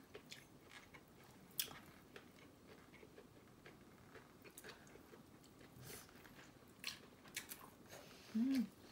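Quiet chewing of fried shrimp, with a few scattered light clicks and a short hummed "mm" near the end.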